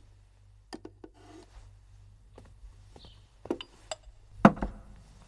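Scattered light knocks and clinks, as of a dish and a wooden surface being handled, with one louder knock about four and a half seconds in.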